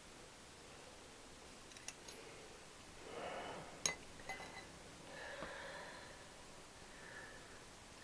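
A few faint, short metallic clicks and clinks of small hand tools on metal, with a breath about three seconds in.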